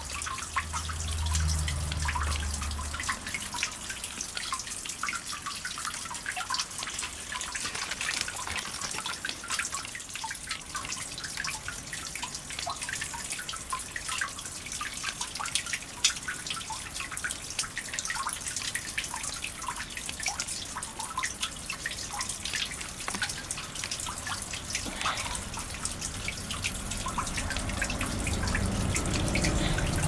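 Water dripping from the rock roof of an old coal mine entrance into a shallow pool: many irregular drips falling in quick succession.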